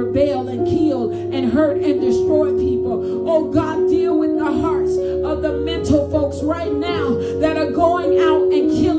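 A woman singing a worship song into a microphone, her voice bending and gliding in pitch over sustained instrumental chords.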